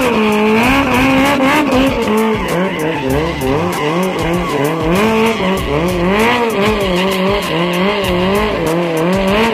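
Sport motorcycle doing a burnout: the engine is held at high revs, its pitch wavering up and down, while the spinning rear tyre squeals on the tarmac.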